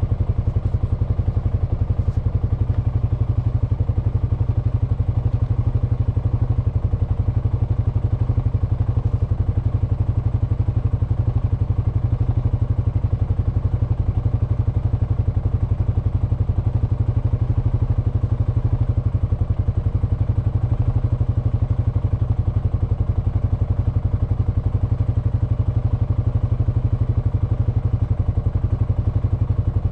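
Honda FourTrax Foreman ATV's single-cylinder four-stroke engine running steadily while cruising at an even speed on a dirt road.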